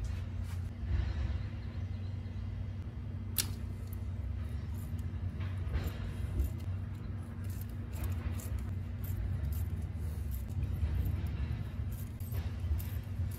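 Light, irregular metallic clicks and clinks of a long socket extension with a T30 Torx bit working the bolts of an OM642 diesel's oil cooler, one sharp click about three and a half seconds in. A steady low hum runs underneath.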